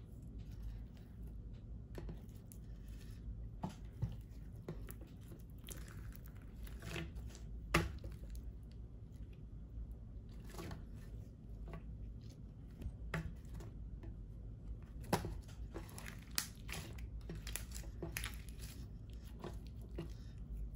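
Clear slime being stretched, folded and kneaded by hand, making wet squelches with irregular sticky pops and clicks as it pulls apart and slaps together. The sharpest pops come about 8 s and 15 s in.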